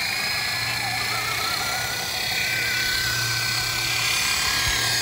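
Amewi Lama RC scale helicopter's electric motor and rotor running at speed for takeoff: a steady high whine with a wavering tone.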